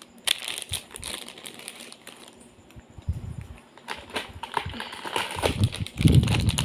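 Hands unboxing a Lego set: plastic packaging crinkling and irregular small clicks and taps of handling, with heavier handling bumps near the end.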